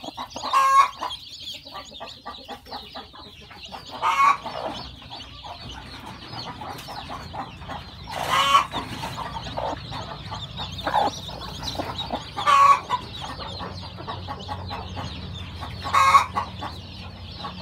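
Newly hatched chicks peeping continuously, with a chicken giving five louder calls about every four seconds.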